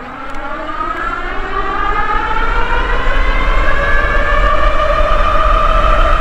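Dual Bafang 750 W geared hub motors of an e-bike whining under hard acceleration, the whine rising steadily in pitch and growing louder as the bike speeds up from about 13 to 35 mph. Wind rumbles on the microphone underneath.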